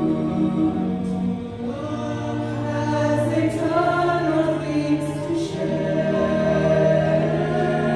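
A quartet of women's voices singing in harmony, holding long notes, with a few sharp 's' sounds.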